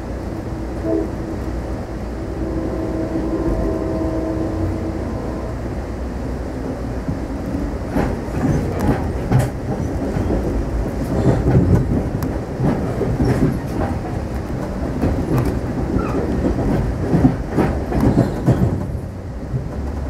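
Amtrak passenger train running, heard from inside the coach: a steady low rumble, with a faint whine that fades out about five seconds in. From about eight seconds in, the wheels clack and knock irregularly over the track.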